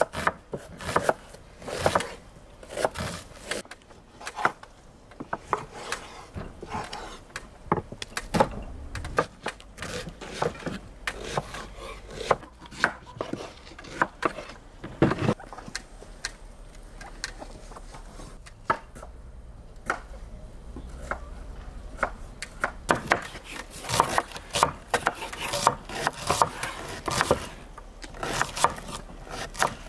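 Kitchen knives cutting onions and beef on wooden cutting boards: irregular knocks of the blade hitting the board, turning into a fast run of cuts near the end.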